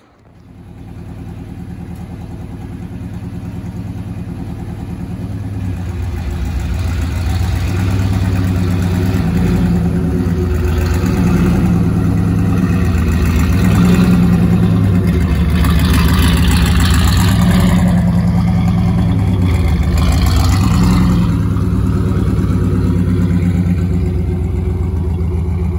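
Turbocharged 1992 Fox-body Mustang's 5.0 V8 running and pulling away on a test drive, getting louder over the first several seconds. Its pitch climbs and drops several times as it accelerates through the gears.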